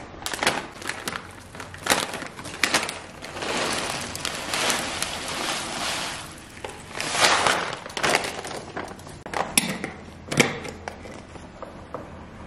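Granola poured into a large glass jar: a dry rattling pour against the glass in two longer runs, about four and seven seconds in, among clicks and knocks of the jar and the bag on the counter.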